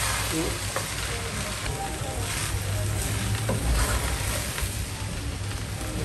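Fried rice with bean sprouts and sweetcorn sizzling in a non-stick pan while a wooden spatula stirs and scrapes through it.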